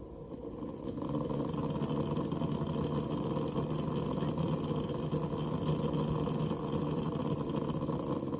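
Barrow pump and CPU waterblock combo running with a dense, buzzing rattle that grows louder about a second in and stays loud until near the end.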